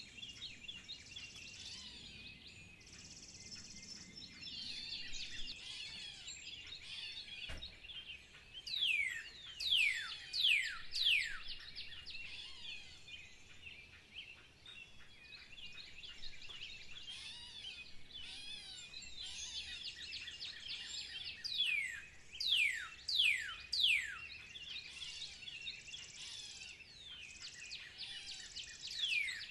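Birds singing: a steady chorus of high chirps, with runs of quick, steeply falling whistled notes that come loudest about a third of the way in and again later on.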